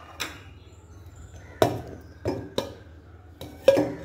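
Stainless steel bowl and measuring cup knocking and clinking, about half a dozen sharp metallic knocks with a short ring, the loudest near the end, as flour is tipped into the bowl.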